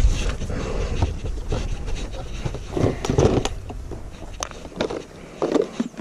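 Wind buffeting the microphone at first, then clicks and knocks of a small plastic cooler box being unlatched and its lid swung open, with a sharp click about four and a half seconds in.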